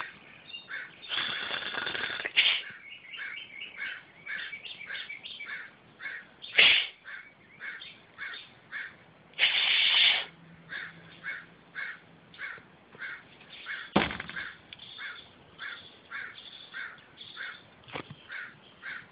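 Crows cawing over and over, about two short calls a second, with two longer harsh, noisy blasts about a second in and near the middle, and a few sharp knocks.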